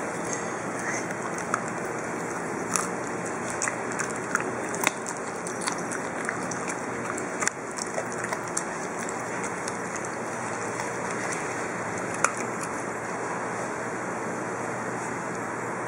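Norwegian Elkhound puppy chewing raw carrot, with sharp crunches clustered through the first half and one more about twelve seconds in, over a steady hiss.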